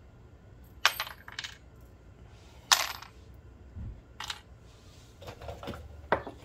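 Small steel U-joint snap rings clinking as they are handled and sorted: about five light metallic clicks, some with a brief high ring, the loudest near the middle. A soft thump comes about four seconds in.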